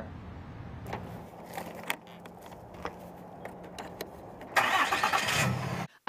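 Pickup truck engine cranking and starting, loud for about a second around four and a half seconds in. Before it, a quieter steady hum with scattered clicks.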